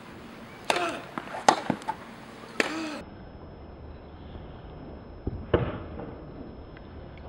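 Tennis rally: the ball struck by racquets in several quick sharp hits in the first three seconds, a couple of them with a short voice sound, then one more hit about five and a half seconds in.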